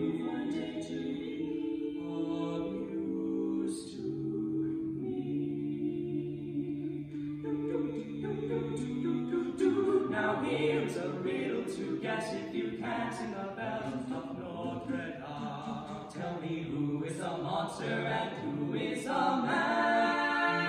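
Barbershop quartet of four male voices singing a cappella in close harmony, moving through sustained chords over a held low bass note.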